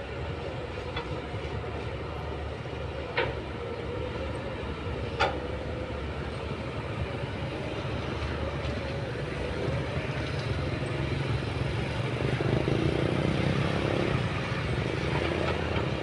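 Diesel engines of a Kobelco excavator and a crawler bulldozer running steadily under load, with two sharp metal clanks about three and five seconds in; the engine noise swells in the second half.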